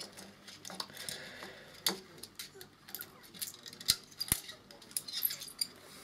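Irregular small clicks and taps of a plastic Super 8 film reel and film being handled and turned by hand on the projector's reel arm while the film end is threaded onto it. The sharpest clicks come about two and four seconds in.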